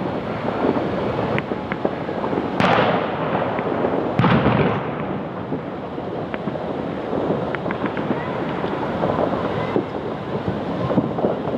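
Fireworks and firecrackers going off: scattered sharp pops, with two louder bangs about two and a half and four seconds in, over a steady rushing background noise.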